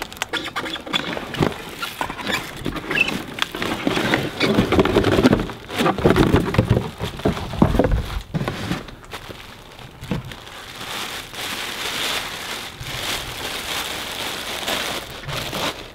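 Clear plastic bag crinkling and rustling as a subwoofer is lifted from its cardboard box and unwrapped, with small knocks from the box. The rustle turns softer and steadier for the last few seconds.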